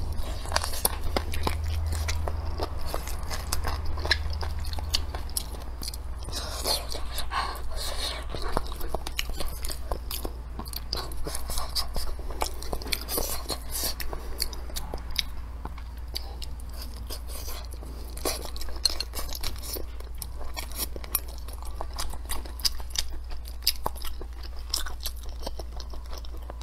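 Close-miked chewing: wet mouth smacks and small clicks of a person eating braised chicken with soft potatoes and peppers.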